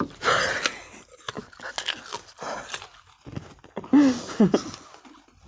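Crunching bites into raw green jujubes and wet chewing, a run of sharp crackles and clicks. About four seconds in, a short vocal grunt falls in pitch.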